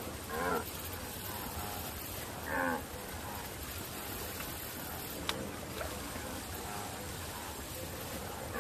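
Short vocal calls from the cartoon wildebeest, heard a few times over a steady low hiss, with a single sharp click about five seconds in.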